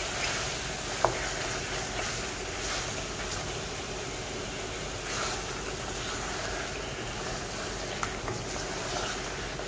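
Chicken in thick coconut-milk curry paste simmering in a stainless steel wok with a steady hiss, while a wooden spatula and metal spoon stir and turn the pieces. A single sharp knock about a second in, and a few light ticks near the end.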